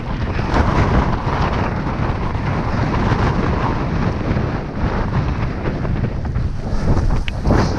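Strong blizzard wind buffeting the microphone: a loud, steady rushing roar with a heavy low rumble that swells and eases in gusts.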